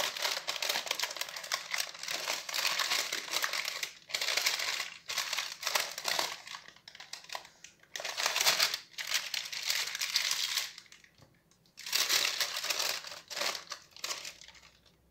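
Baking paper crinkling and rustling in a series of bursts with short pauses as it is lifted and folded over to roll up a filled bread sheet; it dies away near the end.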